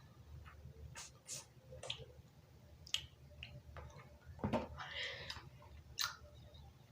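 Chewing chocolate eggs: irregular small mouth clicks and smacks, with a short, slightly louder spell of chewing about five seconds in.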